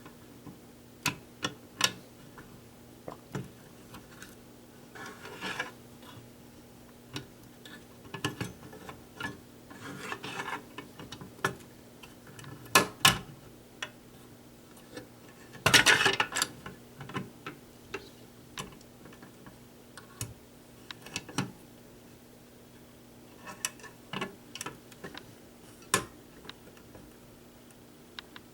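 Irregular clicks and taps with a few brief rustles of handling, the loudest about sixteen seconds in, over a faint steady hum.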